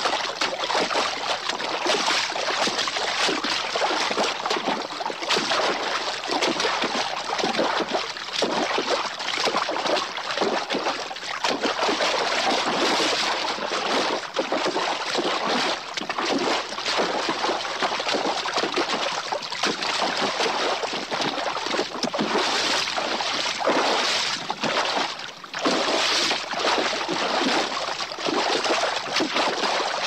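A horse's hooves splashing through shallow water: a dense, continuous run of irregular splashes and sloshing, with a brief lull about 25 seconds in.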